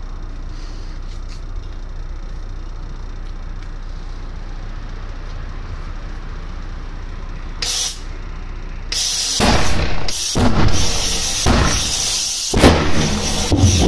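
Pulsejet start attempt: a short hiss, then loud, ragged blasts from the compressed-air starting nozzle with brief breaks, the engine sputtering without settling into a steady run. The owner puts the hard start down to a wrong-size air starting nozzle and fuel pumps that won't change speed.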